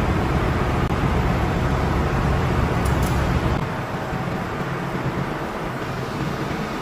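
Steady machinery noise of a ship's refrigeration machine room: a low hum under an even hiss, the hum easing off about halfway through.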